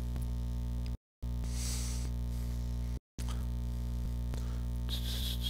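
Steady electrical hum in the recording's audio chain, a low buzz with several even overtones. It drops out to dead silence twice, briefly, about a second in and again about three seconds in.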